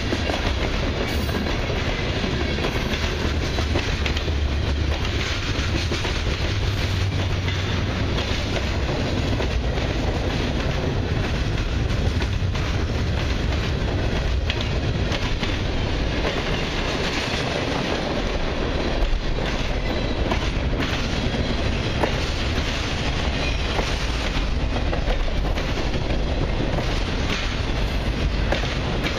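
Freight cars of a long mixed freight train, covered hoppers, coil steel cars and then autoracks, rolling past close by: a steady rumble of steel wheels on rail with occasional knocks.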